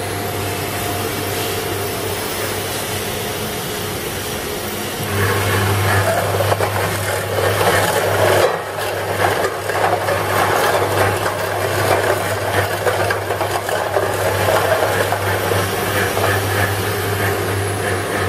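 Bottle counting and filling line running: a steady machine hum from the conveyor and counting machine. About five seconds in, a louder clatter of empty plastic bottles tumbling in the rotary bottle unscrambler joins it and carries on.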